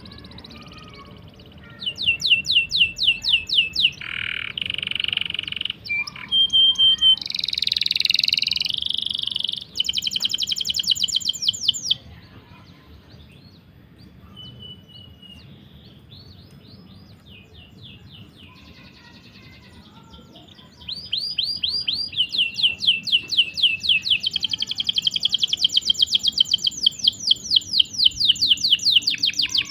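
Songbird singing in rapid trains of high chirps and rolling trills, broken by a couple of harsh buzzy notes. It goes quieter in the middle, then runs into one long, fast, unbroken trill.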